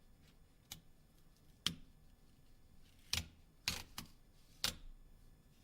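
A small hand tool clicking and tapping against the Nokia Lumia 920's unibody shell while the old adhesive is peeled off: about six light, separate clicks, the loudest cluster in the second half.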